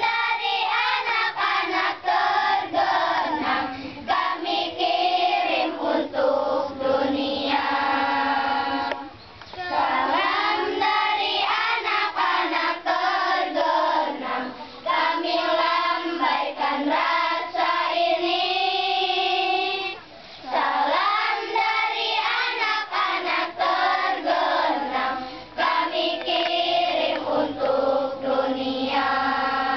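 A choir of primary-school children singing a song together, with two brief pauses between phrases, about a third and two thirds of the way through.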